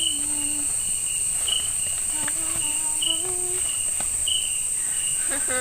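Chorus of night-time forest insects: a steady high-pitched drone with a shorter chirp repeating roughly once a second.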